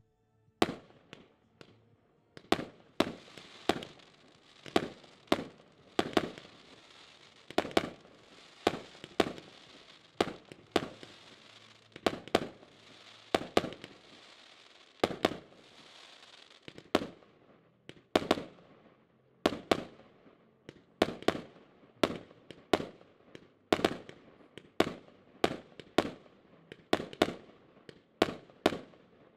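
A 100-shot, 1-inch firework cake firing shot after shot: a sharp bang roughly every half-second to second, each trailing off. Between the bangs there is a steady hiss of crackling stars, heaviest through the first half.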